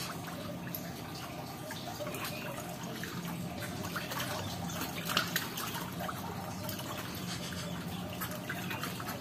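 Water trickling and dripping steadily into a small tarpaulin fish pond, with a few faint clicks and a sharper one about five seconds in.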